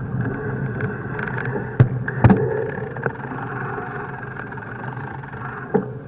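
Wind and rolling noise on the microphone of a camera riding a bicycle at low speed, with two sharp knocks about two seconds in and another near the end as the bike jolts.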